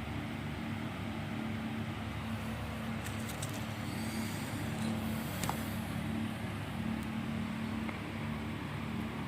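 A steady low mechanical hum with a constant background hiss, and a few faint clicks about three seconds and five and a half seconds in.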